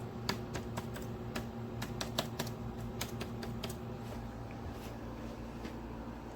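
Corona CW-1619 window air conditioner running with its compressor on: a steady hum with several fixed tones. Over the first four seconds or so a quick, irregular run of light clicks sounds over it.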